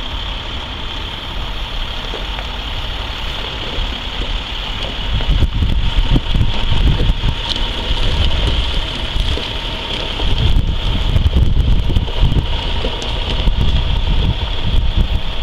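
Engines of a line of self-propelled railway track maintenance machines running as they roll slowly past. Wind buffets the microphone, gusting harder from about a third of the way in.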